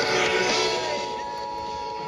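Emergency Alert System attention signal: a steady two-note broadcast tone held without a break, mixed with music and singing from station programming.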